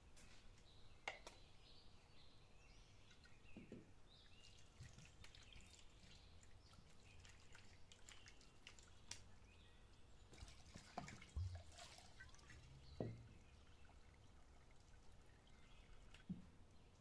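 Faint dripping and splashing of water from a clay jug as raw chicken breasts are washed by hand on a metal tray, with a few soft knocks, the loudest a little past the middle.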